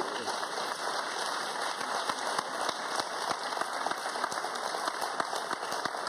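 Audience applauding: a dense, steady patter of many hands clapping.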